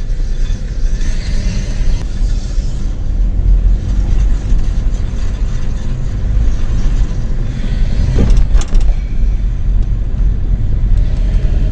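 Car rolling slowly with the windows down: a steady road and engine rumble, with a light metal-on-metal scraping from a rear wheel. The rear brake pads are worn through and rubbing on the disc.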